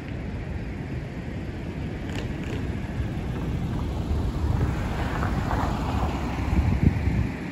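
Wind rumbling on the microphone, with a van driving past close by; its engine and tyre noise swell to a peak near the end.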